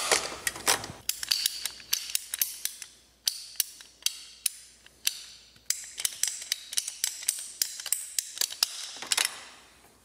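Ratcheting plastic pipe cutter clicking repeatedly as its handle is squeezed and its blade works through a CPVC pipe, the clicks irregular and sometimes in quick runs. A brief noisy rattle comes in the first second.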